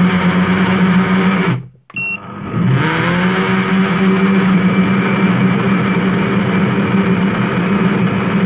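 Morphy Richards soup maker's blender motor running hard, blending chunky chicken and vegetable soup. It cuts out after about a second and a half, the soup maker gives a short beep, and the motor spins back up with a rising whine and runs steadily again.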